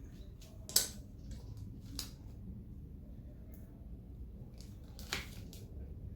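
Sharp clicks and light knocks of a car window motor and regulator being handled and fitted together: a loud click just under a second in, another at about two seconds and a third a little after five seconds, with smaller ticks between, over a faint low hum.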